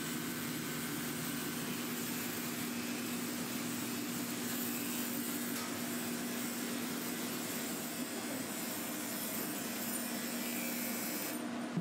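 Electric dog clippers running with a steady hum as they shave a schnauzer's matted coat short, over an even hiss whose high part drops away near the end.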